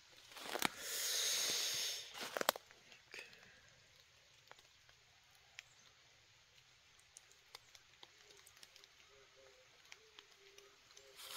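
Dry fallen leaves rustling and crunching underfoot for about two seconds near the start, then only faint scattered ticks.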